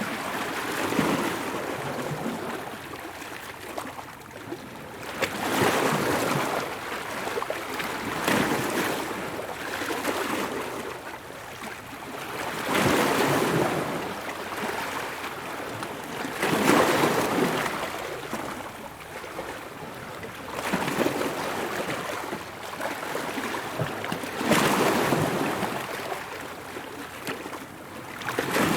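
Ocean waves breaking and washing onto shore, with a swell of surf noise every four seconds or so.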